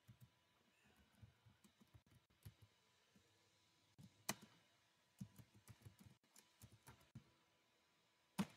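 Faint computer keyboard typing: scattered soft keystrokes, with a sharper click about four seconds in and another near the end.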